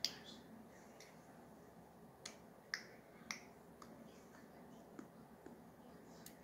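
A handful of faint, sharp clicks and ticks, spaced irregularly, against near silence: plastic card-sleeve pages of a binder being handled.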